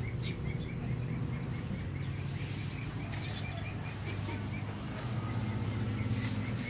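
A puppy's paws scraping in loose soil as it digs, a few short scrapes over a steady low outdoor hum, with a small high chirp repeating about four times a second throughout.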